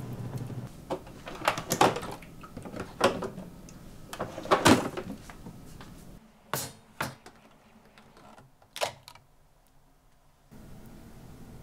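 Kitchen handling sounds: several sharp knocks and clatters in the first half, then a refrigerator door opening and a few clicks as a plastic container is taken out.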